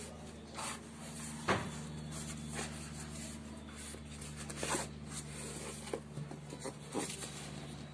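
A cardboard shipping box and the phone's packaging being handled: rustling with several sharp knocks and taps, the clearest about a second and a half in, near five seconds and near seven seconds. A steady low hum runs underneath.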